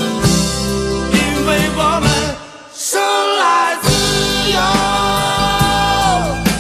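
Rock song with long held sung notes over a full band backing. The bass and drums drop out briefly about two and a half seconds in, then come back in.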